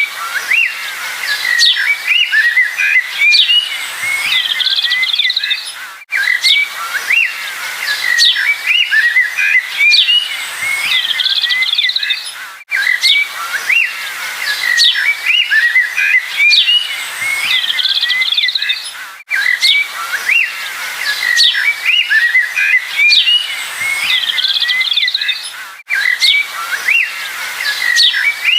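Small songbirds chirping and twittering continuously in quick, overlapping high calls. The same stretch of birdsong repeats about every six and a half seconds, with a brief dropout at each seam of the loop.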